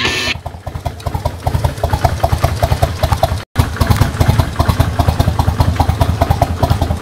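Kawasaki Vulcan 1500 Classic's V-twin engine, fitted with a Kuryakyn Hypercharger air intake, idling with an even pulsing beat. The sound cuts out for an instant about halfway through.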